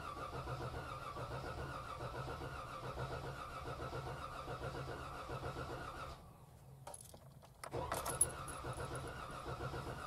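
Starter cranking a Jeep Wrangler's 3.6 Pentastar V6 with the accelerator floored so it does not fire, turning it over only to prime the oil system, with oil pressure still at zero. The rhythmic cranking stops about six seconds in, then starts again a second and a half later with a click.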